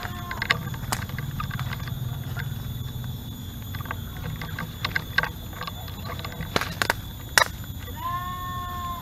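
Rustling of leaves and snapping of twigs and leaf litter underfoot as someone pushes through undergrowth and bamboo, with scattered sharp cracks. Near the end comes a short call lasting about a second, held at a steady pitch.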